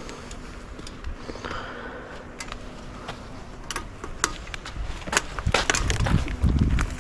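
Yume X11 electric scooter riding over a rough dirt trail: many sharp knocks and rattles as it hits bumps, over steady tyre and trail noise. A heavier low rumble comes in during the last couple of seconds.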